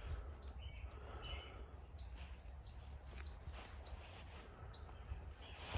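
A bird chirping repeatedly, short high chirps about one every 0.7 seconds, over a faint low hum.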